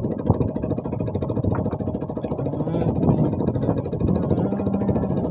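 Small fishing boat's engine running steadily, with a fast, even firing rhythm.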